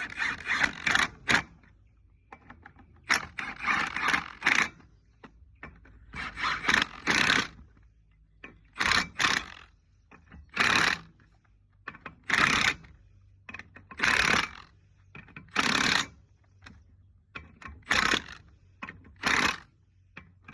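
A wrench tightening the wedge-clamp nuts on a Dayton spider-style trailer wheel hub, in short bursts repeating roughly every one and a half to two seconds.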